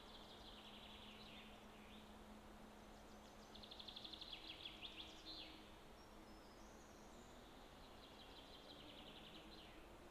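Faint songbird song: three short trilled phrases of rapidly repeated high notes, the loudest about four seconds in, over a faint steady low hum.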